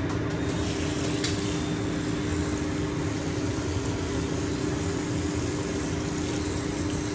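Tap water running steadily from a chrome faucet into a ceramic wash basin, turned on just at the start with a faint click from the tap, over a steady hum.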